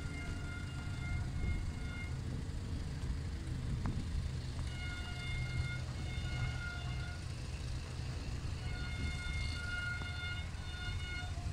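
Horn of a distant approaching HGMU-30 R diesel locomotive sounding three long blasts: one ending about two seconds in, then blasts about five and nine seconds in, each lasting over two seconds. A steady low rumble runs underneath.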